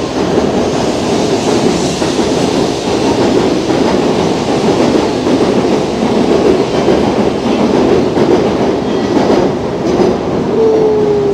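An N700-series Shinkansen bullet train runs alongside the platform with a loud, steady rush of wheel and air noise. Near the end a single whine falls in pitch as the train brakes to a stop.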